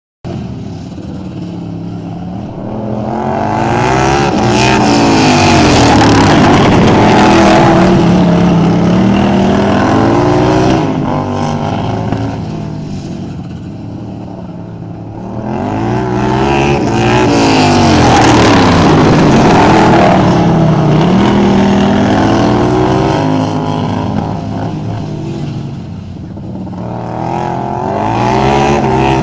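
Racing lawnmower engines revving and changing pitch constantly as they race around a track. The sound swells loud twice as they come close and fades between passes.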